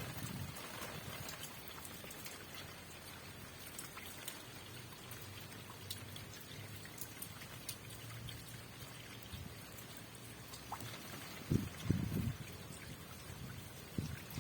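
Rain falling steadily, with scattered individual drops ticking sharply close by, and a few low thumps about eleven to twelve seconds in.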